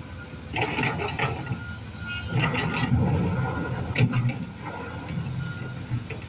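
Sany SY215 excavator's diesel engine running under load, with a repeating high alarm beep and several bursts of clattering and scraping, including a sharp knock about four seconds in.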